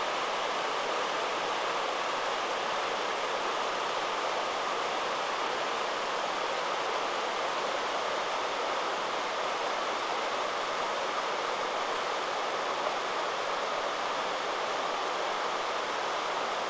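Waterfall: a river rushing steadily over low rock ledges in a broad, even roar of falling water.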